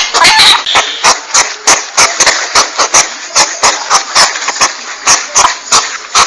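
Porcupine calls for a hunting lure: a fast, uneven run of sharp clicks, about four a second, over a steady hiss.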